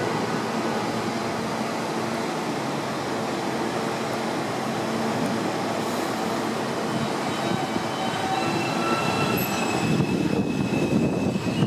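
New York City subway train (an R160A-1) running along the elevated steel track, a continuous rumble of wheels on rails. High thin squealing tones from the wheels set in about two-thirds of the way through, and the rumble grows a little louder near the end.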